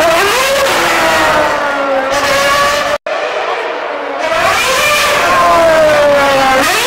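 Red Bull Racing Formula One car's engine revving up and down in repeated rises and falls of pitch. The sound cuts out abruptly for an instant about three seconds in, then the revs climb again and fall away in a long sweep near the end.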